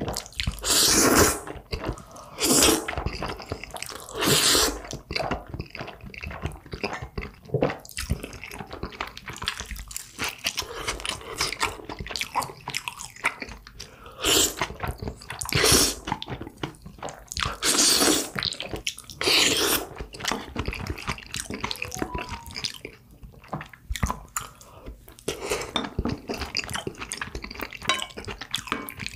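Jjajangmyeon (black bean sauce noodles) being slurped in several loud, long sucks, with wet chewing and mouth-smacking clicks in between.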